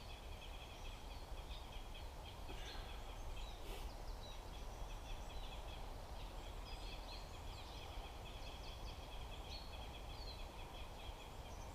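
Small birds chirping and calling, with many short high chirps over a steady high-pitched background and a low rumble underneath.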